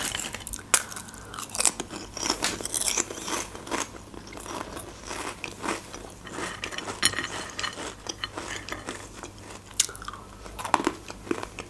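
Close-miked crunching and chewing of salty beer snacks, potato chips and nuts, with many sharp crackling bites.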